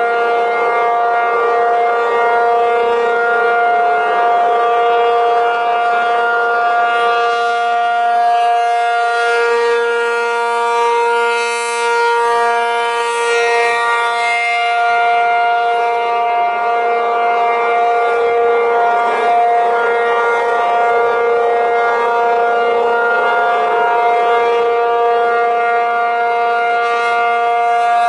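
ACA P-50 rotating outdoor warning siren sounding a steady alert: a loud, unchanging two-tone chord of about 470 and 705 Hz. Its tone grows slightly duller in the middle as the slowly rotating horn turns.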